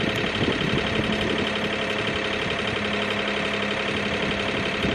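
Sailboat's newly installed inboard diesel engine running steadily under way, with a steady low hum and a dense, even mechanical clatter.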